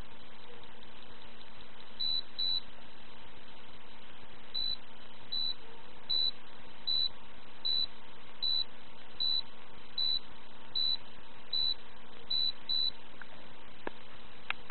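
Piezo buzzer on a homemade PIC16F84 timer board giving short high beeps: a quick double beep about two seconds in, then single beeps a little under a second apart while the timer counts down, ending in another quick double beep.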